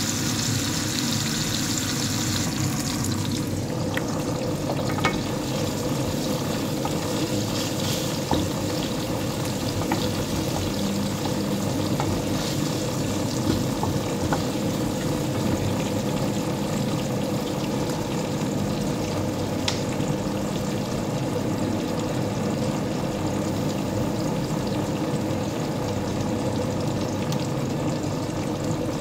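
Onion, ginger and garlic sizzling in hot oil in a pan: a steady frying hiss, sharpest in the first three seconds and softer after, with a few light clicks.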